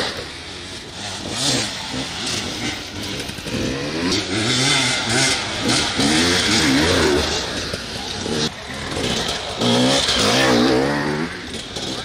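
Enduro dirt bike engines revving as riders push through the forest course, the pitch climbing and dropping in several surges.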